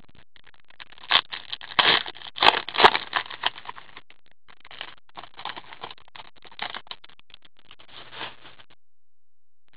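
Hockey trading cards being flipped and slid against one another in gloved hands: a run of quick, irregular clicks and scrapes that stops near the end.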